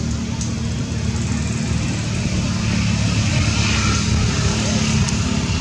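Steady low drone of an engine running, with a faint click or two.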